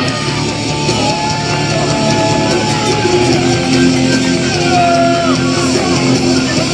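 Rock entrance music with guitar, played loud over the arena PA for a wrestler's ring entrance.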